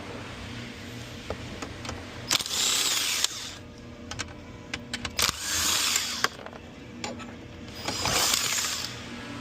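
A tool working a 10 mm fastener in three bursts of about a second each, with light clicks and knocks in between.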